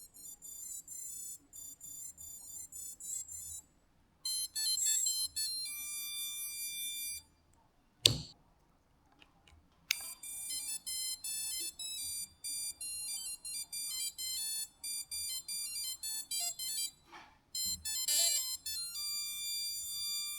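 A custom startup melody for AM32 drone ESCs, played as a quick tune of electronic beep notes. A sharp click comes about eight seconds in, and the tune starts again two seconds later.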